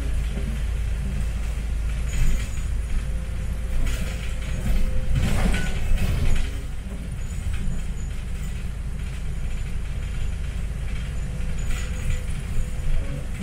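Cabin noise of an articulated city bus driving slowly: a steady low drivetrain and road rumble with rattling and knocking from the bodywork. The rattling is loudest between about four and six seconds in.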